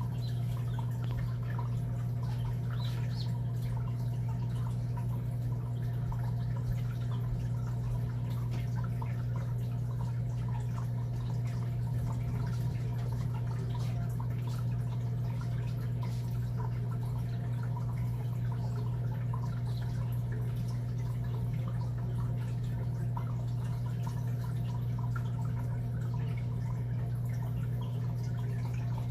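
Steady low hum at an unchanging level, with faint scattered ticks over it.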